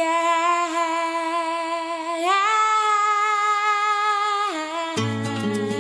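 A wordless female vocal holds a long note, glides up to a higher held note about two seconds in, and drops back down near four and a half seconds. Just before the end a pop band comes in with plucked acoustic guitar, bass and light percussion.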